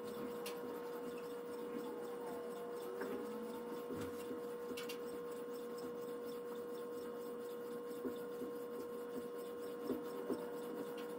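Faint scraping of a sharpening stone on a guided-rod sharpener, swept in strokes along the steel edge of a Chinese fish cleaver, over a steady hum.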